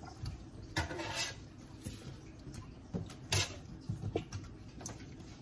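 Light kitchen handling noises at a wooden cutting board: scattered clicks and knocks of utensils and vegetables, with a short scraping sound about a second in and another a little past three seconds.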